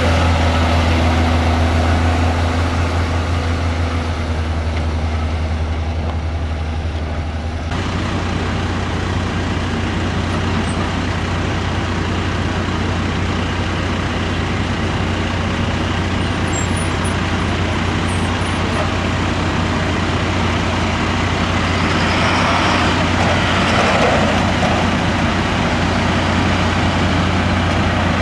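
Diesel engines of heavy fire engines driving on a dirt road, a steady low engine drone with tyre and road noise. The sound changes abruptly about eight seconds in, and it swells as a truck comes closer about three quarters of the way through.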